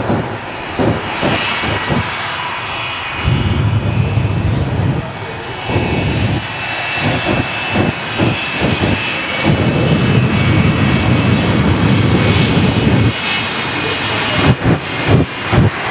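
Shockwave jet truck's triple jet engines running loudly with a high whine, broken by clusters of sharp pops as bursts of flame shoot from its exhaust stacks.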